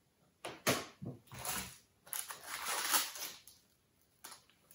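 Crisp roast potato crust crackling in several short bursts as it is handled and broken apart by hand.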